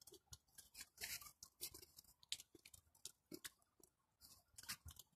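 Faint, irregular crunching of footsteps on fresh snow, a few short crunches a second.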